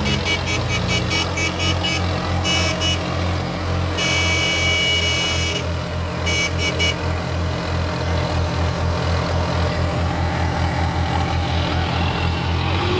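Diesel engines of two tractors, a Swaraj 855 and a John Deere 5039D, running hard under load while pulling against each other in a tug-of-war. Repeated short horn toots come in bursts during the first half.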